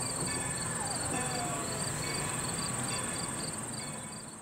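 Outdoor insect chorus: a steady high drone with a short chirp repeating about twice a second, fading out near the end.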